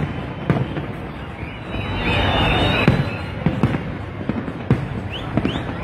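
Aerial fireworks display going off: a series of sharp bangs and crackling, with a few short rising whistles near the end.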